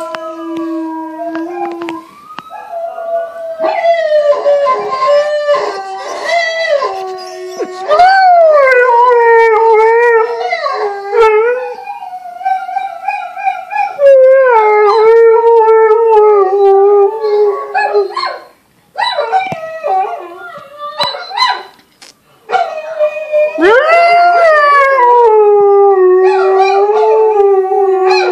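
Tamaskan dog howling: long, wavering howls that slide up and down in pitch, several in a row with short breaks between them. The howling of another dog, played on a television, mixes in.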